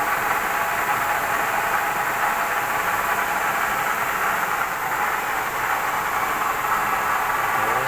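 Kiheung KMU-1.5 S milling machine running steadily while face-milling an aluminium workpiece flat: a constant cutting and machine noise that holds an even level throughout.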